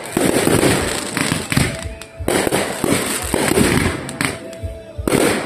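Fireworks show going off in quick succession: a dense string of bangs and crackling, easing briefly about two seconds in and again near the end.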